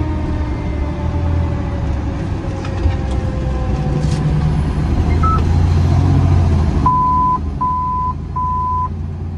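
Fire engine's diesel engine running, heard from inside the cab, while a siren winds down with a slowly falling pitch over the first few seconds. Near the end come three short, evenly spaced electronic beeps.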